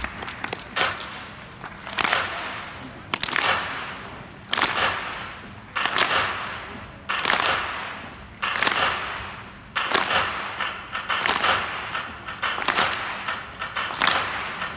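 Large concert audience clapping in unison to a slow beat, about one clap every second and a quarter, each clap trailing off in the hall's echo; from about ten seconds in, the claps come quicker and more ragged.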